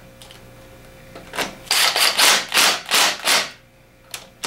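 Cordless impact driver running in a string of about six short bursts in quick succession, starting about a second and a half in, as it drives home the thermostat cover bolts on a Johnson 15 hp outboard's powerhead.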